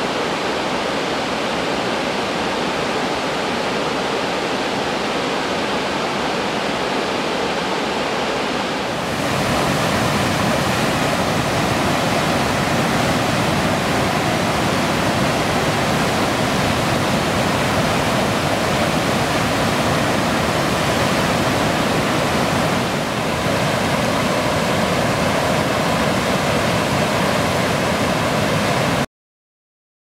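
Rain-swollen waterfall in flood: a steady, dense roar of rushing, falling water. About nine seconds in it turns louder and deeper, and it cuts off suddenly near the end.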